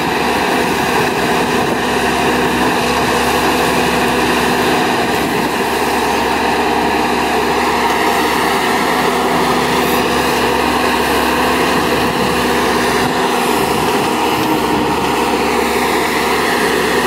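Volvo crawler excavator's diesel engine running steadily under working load while the machine digs out a tree stump, with a few held tones that drift slightly in pitch.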